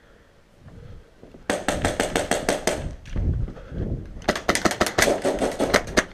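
HPA-powered airsoft rifle, an Ares Amoeba AM-013 with a PolarStar Jack engine, firing two rapid bursts of sharp shots: the first about a second and a half in, the second about four seconds in, each lasting well over a second.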